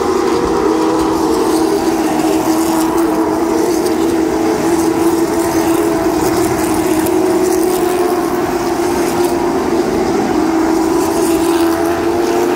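Field of stock cars racing around a short oval, their V8 engines blending into one loud, steady drone that wavers only slightly in pitch.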